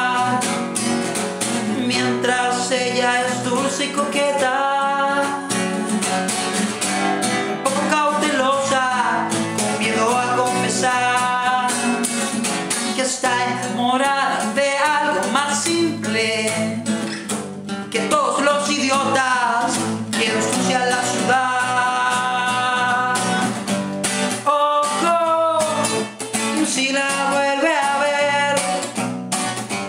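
Nylon-string classical guitar strummed in a folk-rock song, with a man singing over it.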